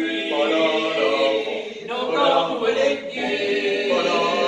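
A male vocal quartet singing a cappella, holding sustained notes in short phrases of about two seconds.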